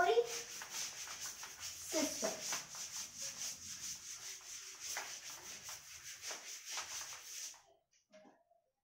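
A duster wiped back and forth over a chalkboard in quick repeated scraping strokes, stopping about a second before the end.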